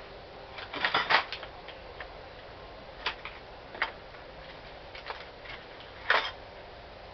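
Hand tools clicking and knocking against steel suspension parts while a front strut is taken apart: a quick cluster of knocks about a second in, a few single sharp ticks, and a louder knock near the end.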